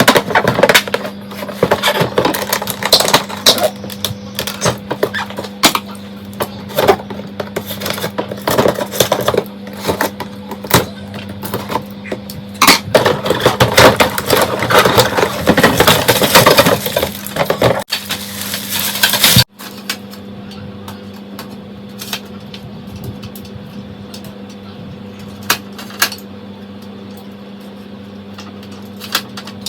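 Dense crackling, clicking and clattering of objects being handled. It cuts off suddenly about two-thirds of the way through, leaving a steady low hum with a few isolated clicks.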